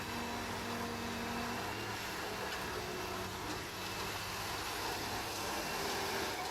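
Heavy-equipment diesel engine running steadily at an even pitch, with no sharp knocks or revving.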